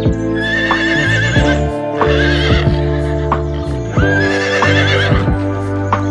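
A horse whinnying three times, each a quavering call of about a second, over background music.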